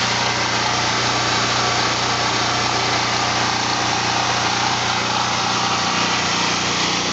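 Wen 3500-watt portable generator's small gasoline engine running steadily and evenly, smooth and quiet, on a new carburetor after a gummed-up one was replaced.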